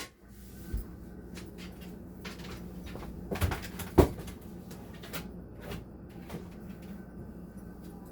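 Knocks and clatter of things being handled and set down in a kitchen, with one sharp knock about four seconds in, over a steady low hum.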